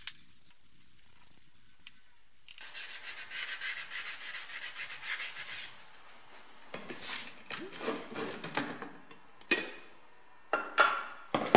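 Hand-sanding a grey-coated CV-jointed drive shaft with a sanding pad: quick, even back-and-forth rubbing strokes, then louder, irregular scraping. Several sharp knocks near the end.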